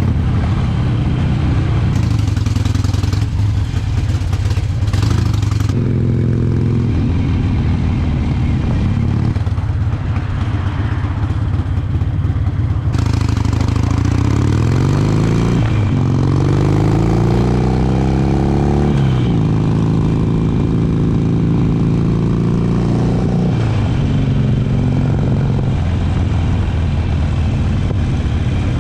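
Harley-Davidson V-twin motorcycle engine running on the move. About halfway through it pulls up in pitch twice as it accelerates through the gears, then settles back to a steady run.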